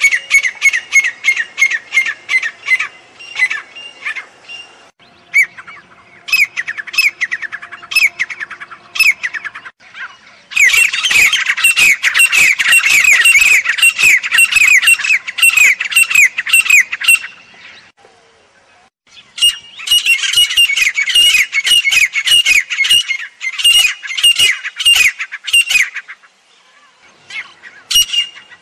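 Grey francolins calling: loud, shrill notes repeated rapidly in long runs, each note dropping slightly in pitch. The calling pauses briefly about two-thirds through and again near the end.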